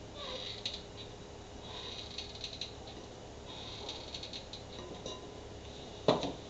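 Hot glue gun being squeezed in short spells as glue is run into gaps, its trigger and stick-feed mechanism clicking and creaking. Near the end, a sharp knock as the glue gun is set down on the table.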